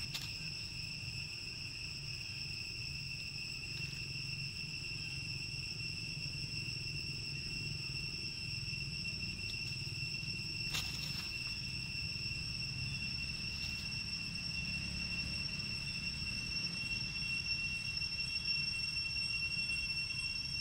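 Steady, unbroken high-pitched insect drone, one held tone with a fainter higher overtone, over a low background rumble. A single brief click about eleven seconds in.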